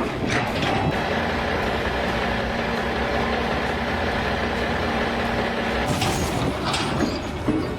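Heavy engine running steadily with a low rumble, with a few sharp knocks near the end.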